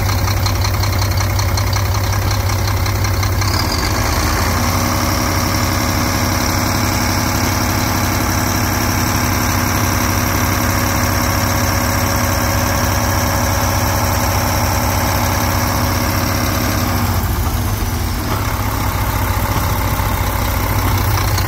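2012 Mack MP7 10.8-litre inline-six turbo-diesel engine running. About four seconds in it picks up to a higher, more whining speed and holds there, then winds back down to a steady idle near the end.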